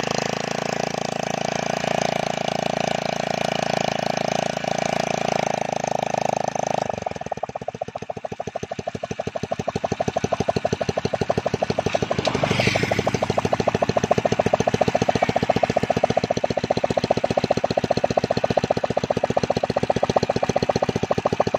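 A brush cutter's small engine running steadily at cutting speed. After about seven seconds, a Honda-type single-cylinder motorcycle engine takes over, mounted on a homemade winch puller. It runs with a rapid, even chuffing pulse, with a short rise in pitch a little past halfway.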